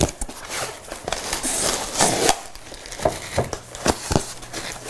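Plastic-wrapped ceramic plates being worked out of a styrofoam packing insert: rustling and scraping of plastic film and foam, with a few light knocks.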